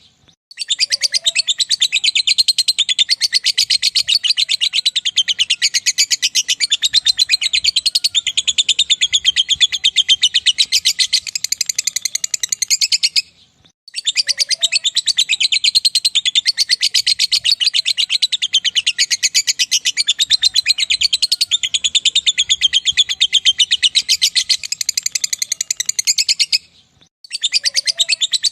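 Lovebird singing its long 'ngekek' chatter: a loud, rapid, unbroken stream of high-pitched chirps. Each run lasts over ten seconds, with brief breaks about halfway through and near the end.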